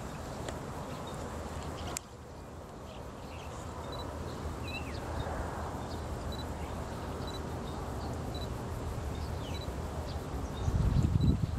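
Birds chirping, one repeating a short high note about every half second, over a steady low rumble; a louder low rumble swells near the end.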